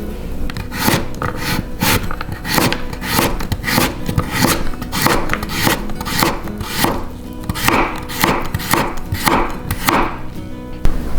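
Knife chopping vegetables on a cutting board: irregular strokes, about two or three a second.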